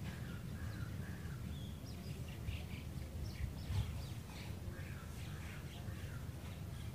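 Several birds chirping and calling, short high calls scattered throughout, over a steady low rumble. A brief low thump a little past the middle.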